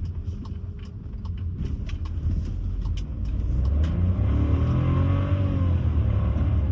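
Car with a 1.6 engine heard from inside the cabin while driving, with a light ticking about three times a second over the first few seconds. About four seconds in the engine picks up: its note rises, gets louder, then eases off.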